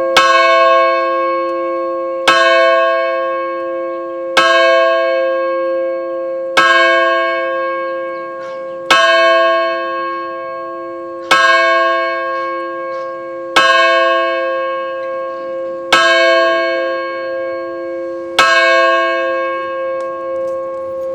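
A bell tolled in single, evenly spaced strokes: nine strokes, roughly every two and a half seconds, each ringing on into the next.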